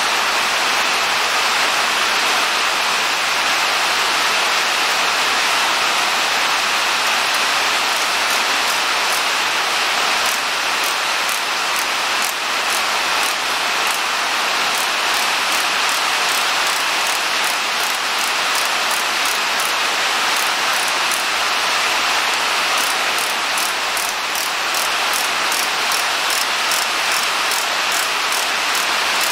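Heavy rain coming down outside, a loud, steady hiss. Faint regular ticking, about three a second, runs through the second half.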